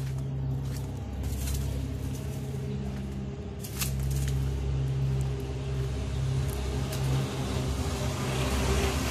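A motor running steadily with a low, even hum, with a few short taps.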